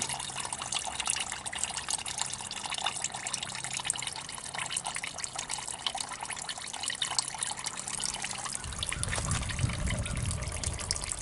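A thin stream of gasoline-diluted crankcase oil running from a Briggs & Stratton L-head twin's drain pipe into a bucket, a steady trickle and splatter. The sump is flooded with fuel, which points to a sticking carburetor inlet needle or a holed float. A low rumble comes in for a couple of seconds near the end.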